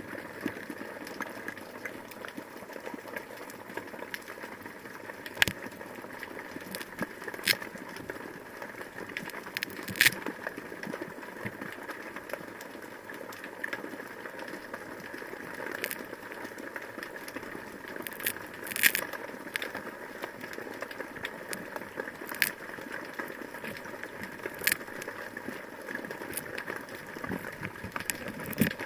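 Underwater ambience: a steady hiss with scattered sharp clicks and crackles.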